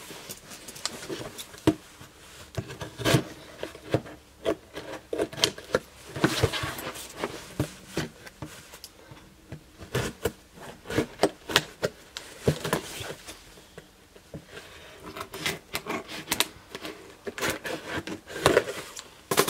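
Scissors cutting and scraping at the tape and cardboard of a box being opened, with handling rustles and many irregular small clicks.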